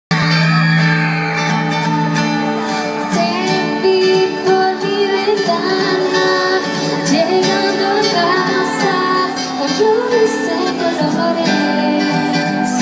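A live pop-rock band playing a ballad through a concert sound system, heard from the crowd: guitars and keyboard, with a female voice singing over them.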